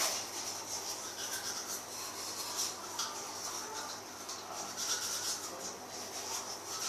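Toothbrush scrubbing teeth in quick, irregular back-and-forth strokes.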